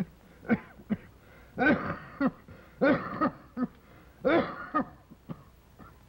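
An elderly man coughing in a run of short voiced coughs, loudest in three bouts about a second and a half apart, with quick catches of breath between them.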